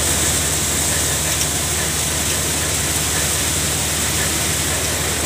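Multi-crop grain thresher running steadily with a low hum, while threshed grain pours from its outlet spout into a plastic basin as a continuous hissing rush.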